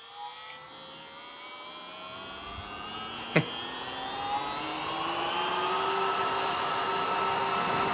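HONK rechargeable mini vacuum cleaner's small motor spinning up, its whine rising in pitch and growing louder over about six seconds before settling into a steady high whine; it sounds like a jet engine starting. A single sharp click about three and a half seconds in.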